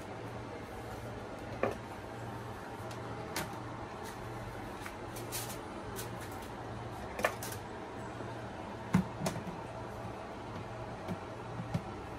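Plastic steamer baskets and lid being handled and fitted onto an electric food steamer: scattered light clicks and knocks of plastic, a few more close together near the end as the lid goes on, over a steady low hum.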